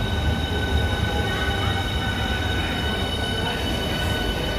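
Southeastern Class 395 electric train standing at a platform: a steady high whine of several tones over a low hum.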